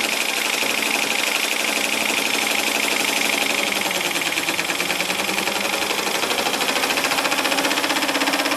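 3D-printed Pelton turbine spinning under water jets, belt-driving a 12-volt motor as a generator: a steady hiss of spraying water over a fast, even mechanical rattle. About halfway through, a hum comes in and climbs slightly in pitch as the second water jet brings the turbine up to speed.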